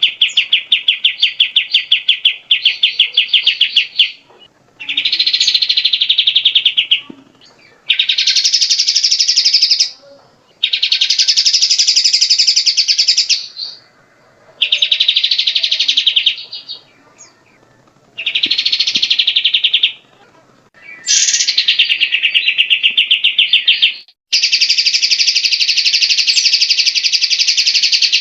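Grey-cheeked bulbul (cucak jenggot) calling in repeated rapid chattering trills, each a few seconds long, with short pauses between them.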